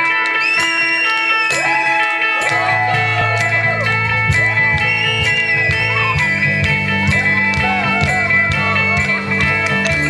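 Live rock band playing an instrumental intro: electric guitar lead with bent, gliding notes over steady held chords and drums. The bass comes in about two and a half seconds in.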